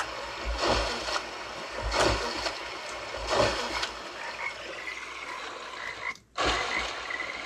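Layered sound-effects mix for a model water mill played back through computer speakers: repeated water splashes from a turning mill wheel over running water, with a big frog croaking. The audio cuts out briefly about six seconds in.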